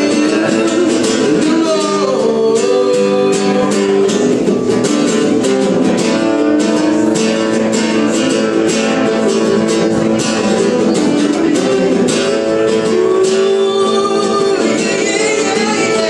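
Live acoustic music: a strummed acoustic guitar with a second guitar playing along, and a man singing in parts.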